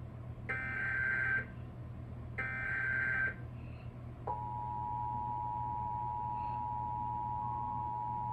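Emergency Alert System SAME header: the last two of its three digital data bursts, each just under a second and about two seconds apart. About four seconds in, the steady two-tone EAS attention signal starts, announcing a required monthly test.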